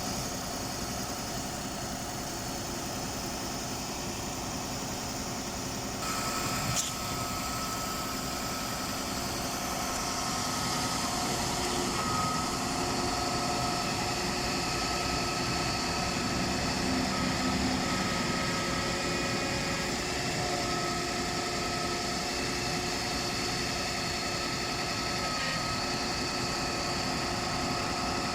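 Ready-mix concrete truck engine running steadily. It grows a little louder about six seconds in, with a single sharp click just after.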